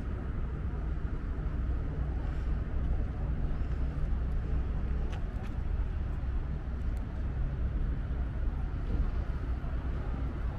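City street ambience dominated by a steady low rumble of traffic and engines, with a few faint ticks.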